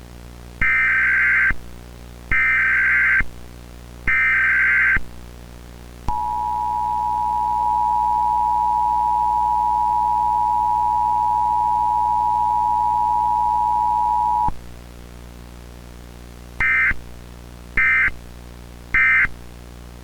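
Emergency Alert System signal: three harsh digital data bursts of the SAME header, then the steady two-tone EAS attention signal held for about eight seconds, then three shorter end-of-message bursts, over a faint low hum.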